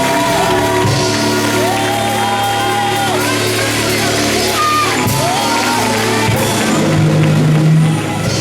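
Gospel praise music in a church hall, with steady bass notes under gliding melody lines. Voices sing and shout over the music.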